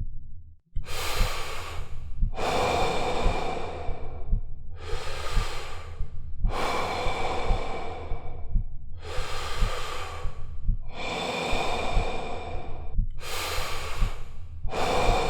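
A person breathing heavily, with long breaths in and out roughly every one and a half to two seconds, over a run of low thumps.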